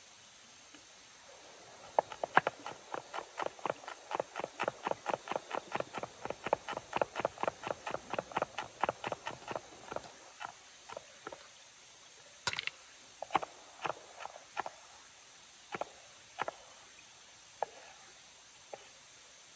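Chef's knife chopping red chilli peppers on a wooden cutting board: a fast, even run of about five chops a second lasting some eight seconds, then slower scattered single chops.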